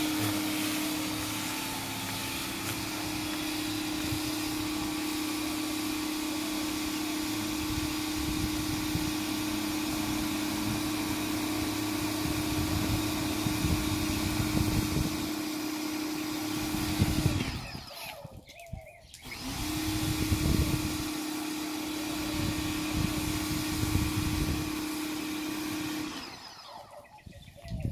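Pressure washer running with a steady hum while its jet sprays a brick wall. It stops for a couple of seconds about two-thirds of the way through, then starts again, and drops out once more near the end.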